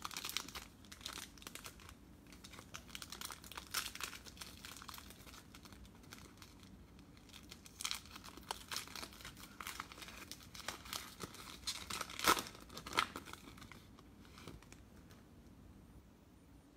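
Foil wrapper of a football trading card pack being torn open and crinkled by hand, in scattered crackles with a few louder ones around two thirds of the way through.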